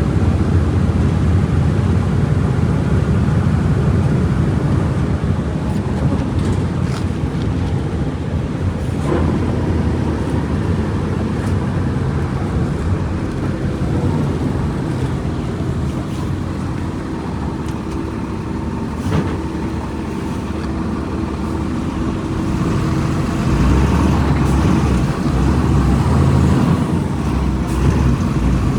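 Volkswagen Volksbus 17.230 EOD bus engine running steadily, with a few sharp clicks. It eases off in the middle and grows louder again about 23 seconds in.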